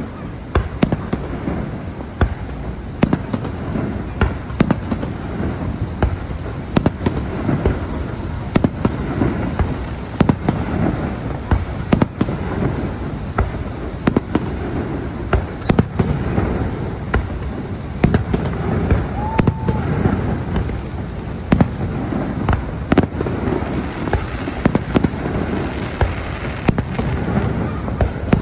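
Fireworks show: a continuous run of sharp bangs and booms, often several a second, over a steady low rumble of overlapping explosions.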